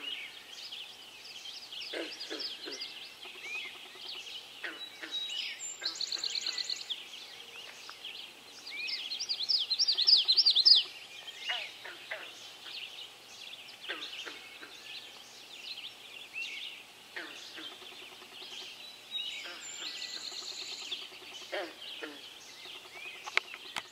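Dawn chorus of many songbirds singing at once. One bird's loud trilled song swells and stops suddenly about eleven seconds in. Another's buzzy trill comes twice, about six and twenty seconds in.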